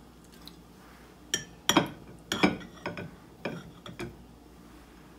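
A fork clinking against a plate about nine times at an irregular pace, from about a second in until about four seconds in, as chicken meat is picked off the bones.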